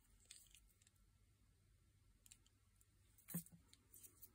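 Near silence with faint small clicks from a tatting shuttle and cotton thread being handled, and one slightly louder click about three and a half seconds in.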